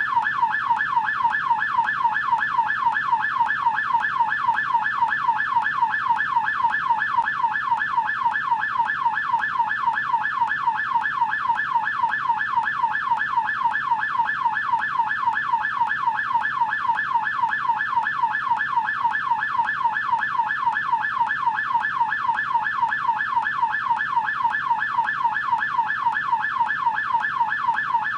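US police car siren on its yelp setting: a fast, even up-and-down wail repeating about three times a second, with no change in pattern.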